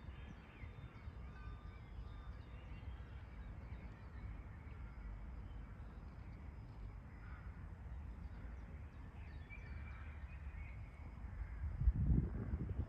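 Outdoor ambience: low wind rumble on the microphone with scattered short bird calls, and a stronger gust of rumble near the end.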